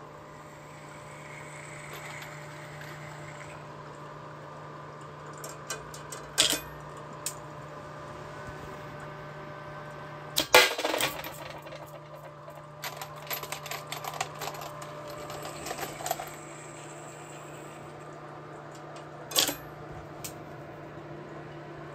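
Homemade induction annealing machine running with a steady hum while freshly annealed brass rifle cases drop out of the coil and clink against a steel pan. The loudest clatter comes about ten seconds in, with smaller clinks before and after it.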